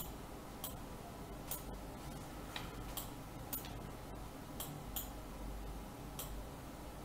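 Computer mouse clicking: short, sharp, irregular clicks about every half second to a second, over a faint low hum.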